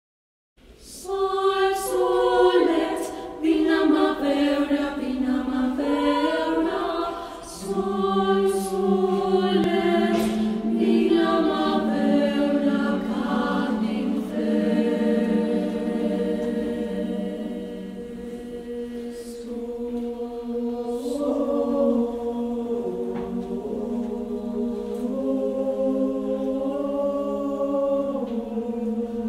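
Mixed choir of women and men singing, with several voice parts in chords. About seven seconds in, a low sustained note enters and holds beneath the moving upper voices.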